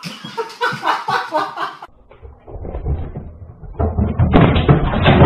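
Heavy knocking and thumping that builds from about four seconds in as a cat perched on a flat-screen TV tips it over on its stand, heard through a security camera's microphone.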